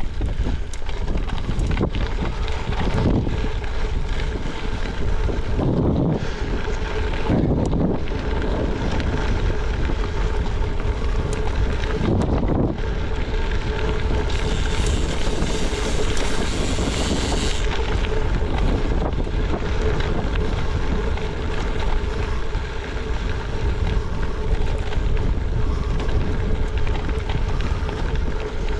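Wind buffeting the microphone as a gravel bike rolls along a dirt road, with the tyres crunching over loose gravel and a few low thumps from bumps. A sharper hiss rises for a few seconds past the middle.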